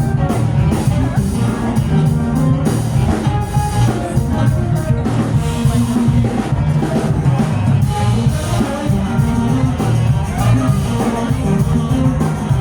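Live band music: a drum kit keeping a steady beat under guitar and a strong bass line.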